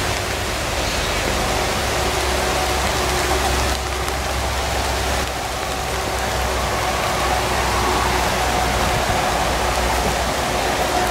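Steady rain falling on forest leaves and grass, an even hiss with no let-up.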